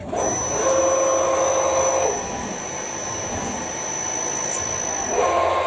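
Tormach Slant-PRO CNC lathe moving its gang tool slide, its axis drives whining over a steady hiss as the drill is brought in close to the chuck. The whine is louder for the first two seconds and again near the end, and quieter in between.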